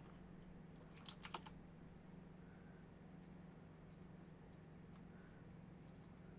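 Faint clicking at a computer's keyboard and mouse: a quick run of about four clicks about a second in, then a few faint ticks, over a low steady hum.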